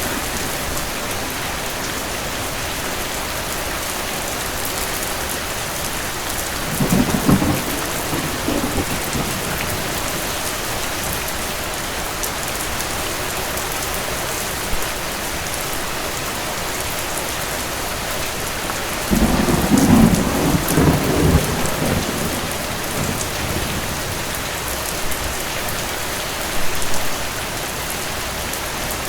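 Steady rain with distant thunder rumbling: a short rumble about seven seconds in, a longer, louder roll from about nineteen to twenty-three seconds in, and a brief one near the end.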